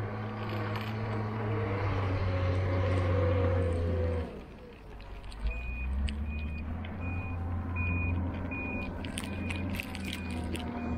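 Moving cable-car cabin giving a steady low hum and rumble, which drops sharply about four seconds in and then picks up again. From about halfway a regular high beep sounds a little more than once a second, with a few clicks near the end.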